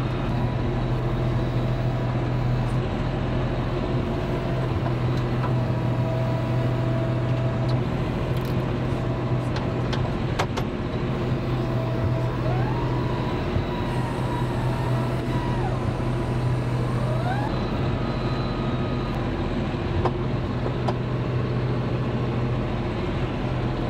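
A John Deere 5075E tractor's diesel engine running steadily under load while it works a loader grapple. A sharp knock comes about ten seconds in, and a faint whine slides up and down in pitch a little later.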